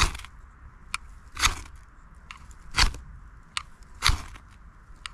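Knife spine struck down a ferrocerium rod: four sharp rasping scrapes about a second and a half apart, with lighter ticks between. The sparks are thrown into a bundle of lichen and dry twigs to light it.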